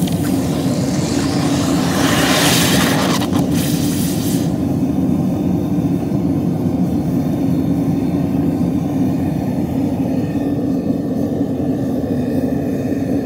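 Hot copper ingot plunged into water for quenching: a sizzling steam hiss for the first four seconds or so that then dies away, over a steady low rumble.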